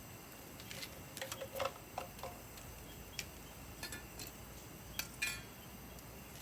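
Dry, sun-dried firewood crackling and popping as it burns in a wood stove: irregular sharp snaps, a cluster about a second in and a couple more around five seconds in, over a low steady hiss.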